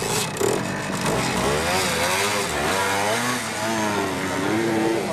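Hercules K 125 BW military motorcycle's 125 cc two-stroke single accelerating away from a standing start, the engine note rising and dropping several times as it is revved through the gears.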